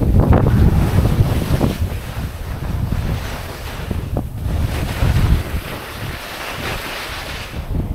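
Wind buffeting the microphone while skis scrape and hiss through chopped snow on each turn, with a short sharp click about four seconds in.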